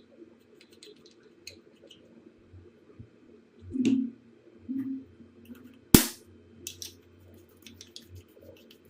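Scattered small clicks and taps of hands handling small hard parts, with a couple of dull knocks around the middle and one sharp, loud click about six seconds in.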